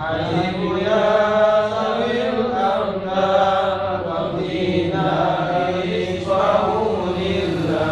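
A group of men chanting an Islamic devotional recitation together from their texts, a melodic line with long held notes that runs on without a break.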